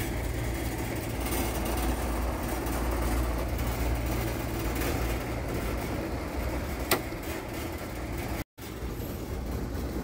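Steady low mechanical rumble with a hiss of moving air, as from building ventilation equipment and ductwork running. A single sharp click comes about seven seconds in, and the sound drops out for an instant a second and a half later.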